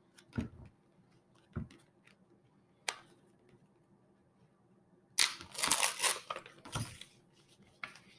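A few soft knocks and a sharp click, then, about five seconds in, two seconds of crackling rustle as vinyl helmet decals are peeled off their paper backing sheet.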